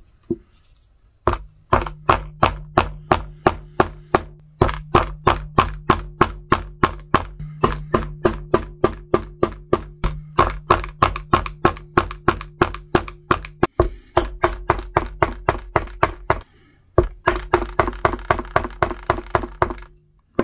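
Hammer striking a metal hole punch through leather on a plastic cutting board, punching stitching holes in a leather knife sheath: sharp, even knocks about three a second, with a few short breaks.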